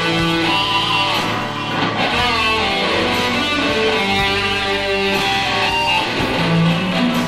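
Electric guitar playing an instrumental piece, with melody notes and chords ringing on continuously.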